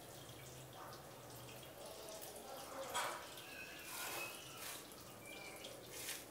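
Faint handling sounds of fingers pulling at a slice of pan-baked pizza on a plate, with a few brief soft sounds about three and four seconds in.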